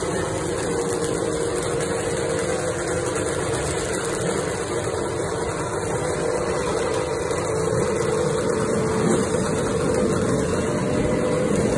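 Vintage two-stroke motorcycle engines running at idle, a steady mixed sound that grows a little louder about eight seconds in.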